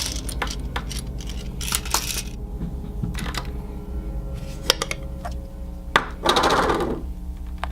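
Small plastic toys and packaging being handled: scattered sharp clicks and light knocks, with a short rustle about six seconds in.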